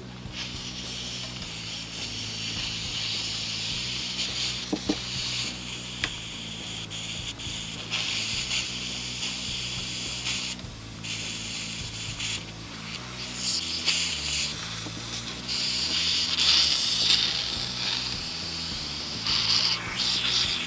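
Steam hissing from a steamer needle pushed into the fretboard of a 1965 Hofner bass, softening the hide glue at the neck-over-body joint so the upward warp can be clamped flat. The hiss breaks off briefly a few times where the steaming has been cut down.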